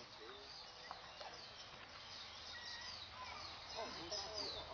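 Birds chirping: many short, high, downward-sliding notes repeated over and over, with faint voices in the background about three and a half seconds in.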